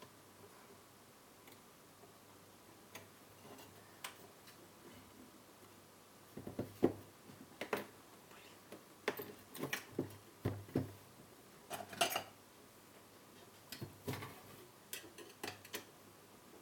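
Irregular clicks and knocks of the car head unit's plastic and metal casing parts being handled and pressed together during reassembly, with a busy run of clatter in the middle and a few faint ticks before it.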